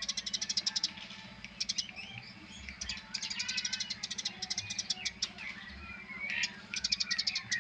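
Eurasian tree sparrows chirping in fast, chattering trains, several bursts of rapid high chirps, over a steady low hum.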